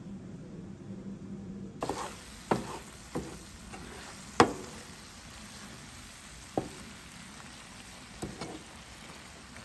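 Diced vegetables sizzling in a frying pan while a wooden spoon stirs them, knocking and scraping against the pan several times; the loudest knock comes about four and a half seconds in. The first two seconds hold only a quieter steady hum before the sizzle starts.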